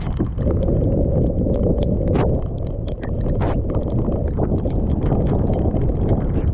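Storm wind buffeting the microphone in a heavy, steady rumble, with scattered sharp ticks of raindrops striking close by.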